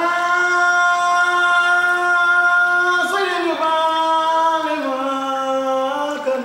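A solo voice sings without accompaniment: a quick upward swoop into one long held note, then about three seconds in it slides down through a few descending steps to a low note, breaking off near the end.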